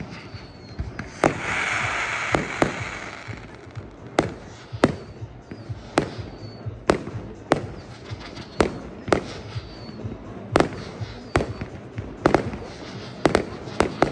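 Fireworks display: a steady run of sharp bangs from launches and shell bursts, roughly one a second. A loud hissing crackle runs from about a second in until about three and a half seconds in.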